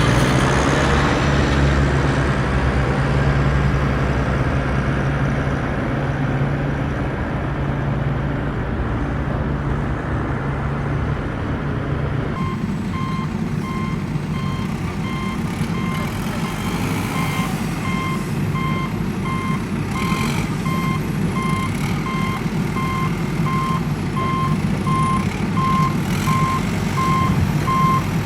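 A vehicle engine running steadily. About twelve seconds in, the sound changes abruptly and a vehicle's reversing alarm starts beeping at an even, rapid pace over the engine and outdoor noise.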